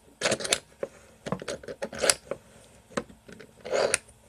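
Irregular clicks and knocks of a microphone boom stand being handled and clamped onto a desk edge, with a brief scrape near the end.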